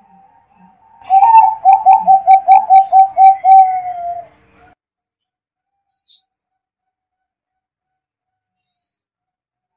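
Zebra dove (perkutut) cooing: a fast run of about a dozen short, slightly falling coo notes, about four a second, lasting about three seconds before stopping.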